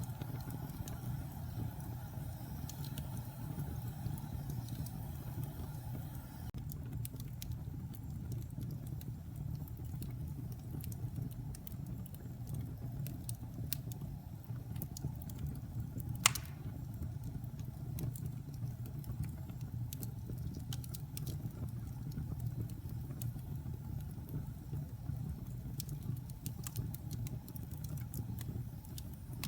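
Wood logs burning in a fireplace: a steady low rumble of flame with scattered crackles, and one loud sharp pop about sixteen seconds in.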